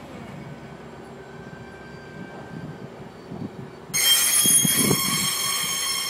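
GO Transit bilevel coaches rolling past with a low rumble; about four seconds in a loud, high-pitched wheel squeal starts suddenly, lasts about two seconds and cuts off.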